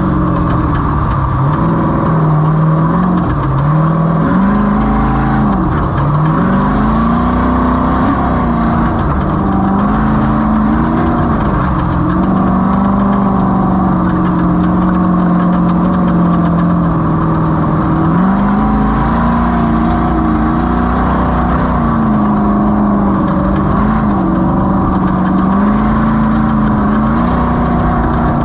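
Off-road race vehicle's engine running hard at speed, its pitch dipping and climbing every few seconds with throttle and gear changes, over a steady wash of noise.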